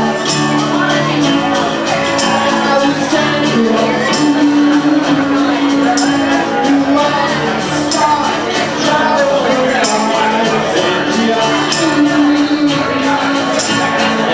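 Acoustic rock band playing unplugged: sustained strummed chords, with a rapid run of sharp percussive ticks on top.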